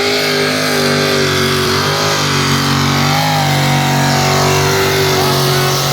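Competition pulling tractor's engine running hard at high revs under load during a pull. The pitch dips briefly twice and climbs back as it works the sled.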